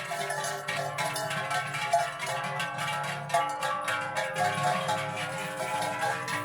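Many large cowbells clanging irregularly, their ringing tones overlapping.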